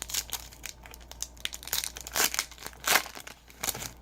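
Trading card pack wrapper being torn open and crinkled, a run of crackling bursts with the loudest a little after two seconds and just before three seconds.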